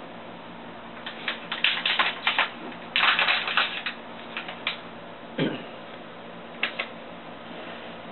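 Crinkling and crackling of a packet being handled in someone's hands, in quick clusters of sharp clicks for a few seconds, then a couple more crinkles later. One short low falling sound about five and a half seconds in.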